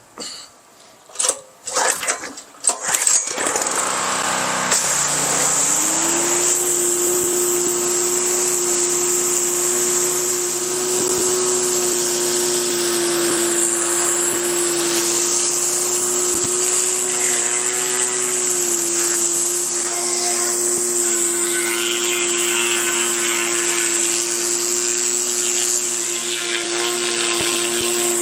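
Westinghouse WPX3400 pressure washer's 212cc four-stroke gas engine starting with a few short bursts in the first three seconds, then running steadily at a constant pitch.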